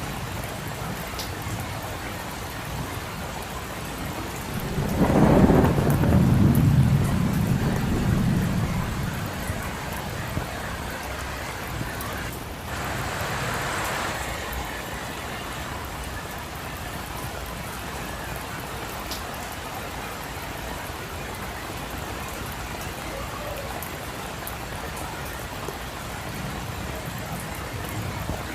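Steady rain falling, with a deep roll of thunder about five seconds in that rumbles for several seconds and fades away.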